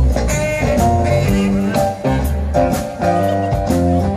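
Live band playing a blues number, heard from the audience: electric guitars over bass and a drum kit keeping a steady beat.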